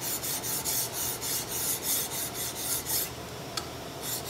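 An 8-inch steel file draw filing the flat of a steel flintlock rifle barrel, slid back and forth without lifting: quick rasping strokes, about three a second, taking off the milling marks. The strokes stop briefly about three seconds in, with a single click, then start again near the end.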